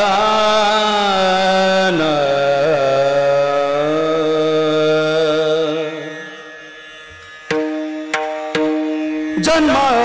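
Devotional kirtan singing: a male voice holds a long high note, drops lower about two seconds in and sustains it with a slight waver until it fades around six seconds. After a short lull, a steady drone and a few sharp percussive strikes are heard, then the loud singing resumes near the end.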